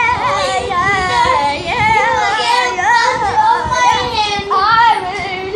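A boy singing loudly in a sing-song voice, the pitch bending up and down without a pause.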